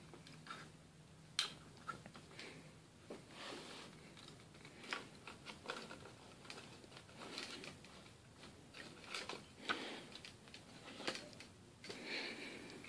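Faint scattered clicks and rustles of a Zeikos tripod's pan head and handle being handled and adjusted, with one sharper click about a second and a half in.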